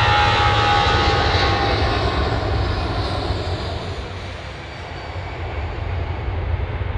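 Boeing 787-10 Dreamliner's jet engines running as it taxis, a whine that fades over the first few seconds above a steady low rumble. The sound dips in the middle and swells again near the end.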